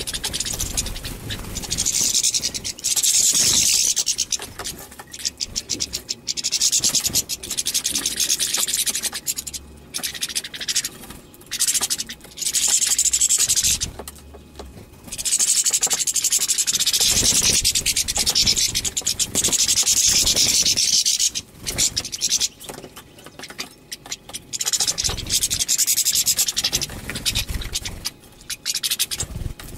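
European goldfinches singing: long bouts of rapid, high twittering song lasting a few seconds each, broken by short pauses.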